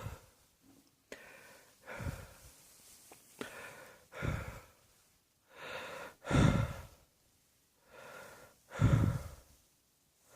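A person breathing heavily, with a string of voiced, sighing exhalations and gasps every second or two; the loudest two come a little past the middle and near the end.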